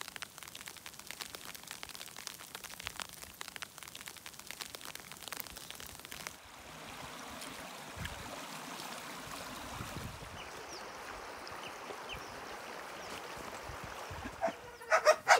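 Wet snow pattering on a backpack rain cover and grass, a dense crackle of fine ticks. About six seconds in it gives way to the steady rush of a shallow stream running over stones.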